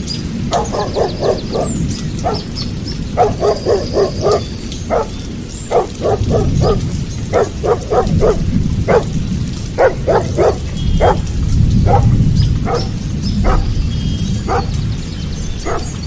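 A dog barking: quick runs of four or five short barks in the first few seconds, then single and paired barks at irregular intervals.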